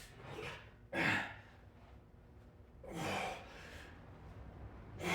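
A man breathing hard with effort during bench press reps: sharp exhales or gasps come about every two seconds, three in all.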